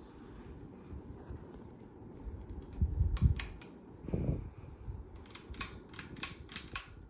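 Canarm Chateau ceiling fan running with a steady low whoosh. A few sharp clicks and low thumps come about three seconds in, then a quick run of about six clicks near the end.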